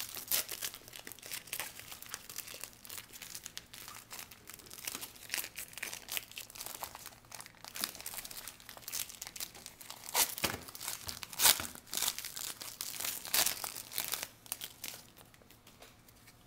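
Plastic foil wrapper of a trading-card pack crinkling and tearing as the pack is opened, an irregular crackle that dies down near the end.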